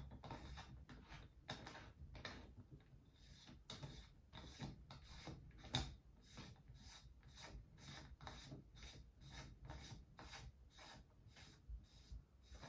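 Faint, repeated clicking and rubbing, about two clicks a second, as the shroud is tightened onto an air rifle's barrel.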